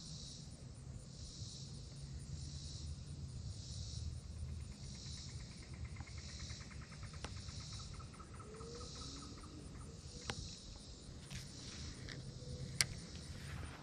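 Summer insects calling in high pulses that repeat a little over once a second. A few sharp clicks come near the end as the fishing rod and reel are handled.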